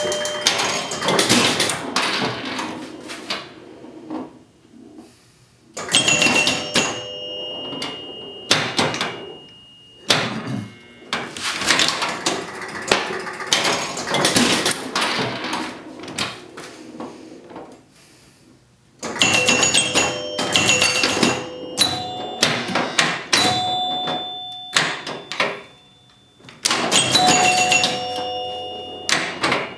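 1976 Gottlieb Surf Champ electromechanical pinball machine in play: chimes ringing as points score, over rapid mechanical clicking of score reels, relays, flippers and bumpers. The sound comes in several bursts with brief lulls between them.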